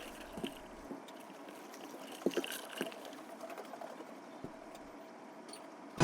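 Quiet room tone with a few soft, scattered clicks and taps.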